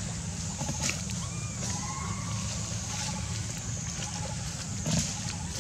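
Forest ambience: a steady high insect hiss and a low rumble, with faint repeated chirps and a few short rising-and-falling whistled calls. Sharp rustling clicks, likely from dry leaves, sound about a second in and more loudly near the end.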